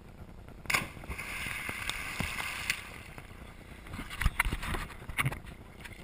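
A person jumping from a cliff with the camera hits a river with a loud splash about a second in, followed by a couple of seconds of rushing, bubbling water around the submerged microphone. Near the end comes irregular splashing and water slapping the microphone as he surfaces and swims.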